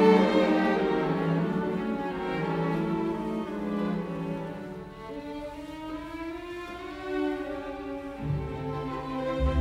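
Background music of slow, held string-like notes, with a deeper bass note coming in near the end.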